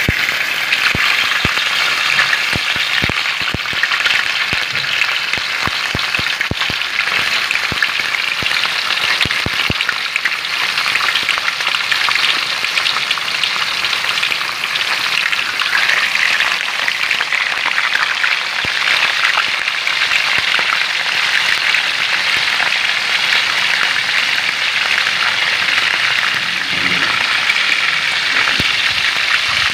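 A whole moonfish frying in hot oil in a wok: a loud, steady sizzle that comes in suddenly as the fish goes into the oil. Sharp clicks are scattered through the first ten seconds or so.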